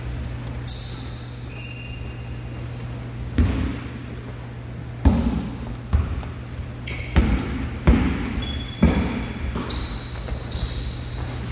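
A basketball bouncing on a hardwood gym floor as it is dribbled: about six bounces, roughly one a second, starting a few seconds in. Short high sneaker squeaks come in between, over a steady low hum.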